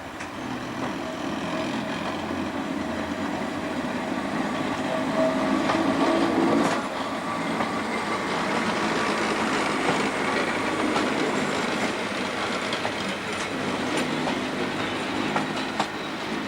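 Train with old FS 'centoporte' coaches running on the rails, a steady rumble with wheel clatter and some faint squeal. It swells to its loudest about six seconds in, drops off suddenly just after, then runs on with scattered light clicks.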